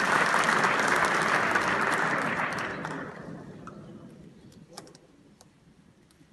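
Theatre audience applauding, the clapping dying away over a few seconds into a hush with a few isolated small clicks.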